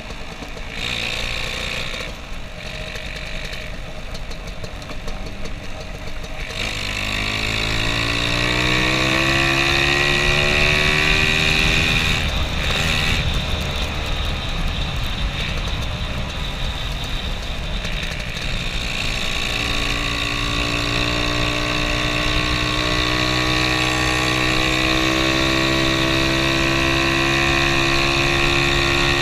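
Lambretta scooter's two-stroke single-cylinder engine under way: quieter for the first six seconds, then rising in pitch as it accelerates, rising again about twenty seconds in and holding a steady cruise, with wind and road noise on the microphone throughout.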